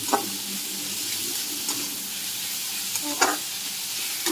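Onion-tomato masala with spices sizzling in a kadhai as a metal spatula stirs it, scraping and knocking against the pan. Two louder clanks come just after the start and about three seconds in.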